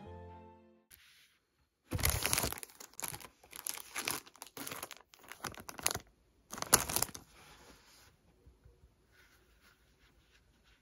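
Clear plastic packaging crinkling and rustling as it is handled, in a series of loud bursts from about two seconds in to about seven seconds in, followed by only faint light handling rustles.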